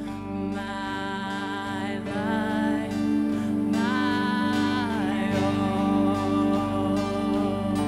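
Live worship song: a woman singing, accompanied by electric and acoustic guitars. The music grows louder about two and a half seconds in.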